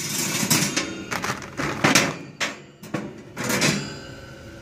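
Metal cooking grates and plates of a reverse flow smoker clanking as they are handled, with several sharp metal knocks and some ringing between them.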